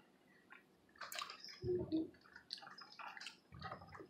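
Faint wet mouth sounds of people eating cotton candy: scattered lip smacks and tongue clicks, with a brief low hum about two seconds in.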